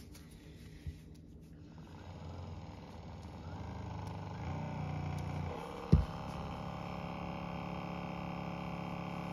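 Sharper Image percussion massage gun switched on and running with a steady motor hum, its sound shifting about four and a half and five and a half seconds in, with a sharp click near six seconds. It runs without a squeak, with baby powder blown into its top vent as a dry lubricant.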